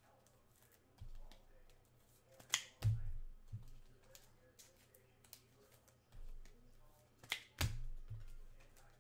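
Trading cards and packs being handled on a table: soft thumps about a second in and about six seconds in, and two sharp snaps, one about two and a half seconds in and one about seven seconds in, each followed by a thump.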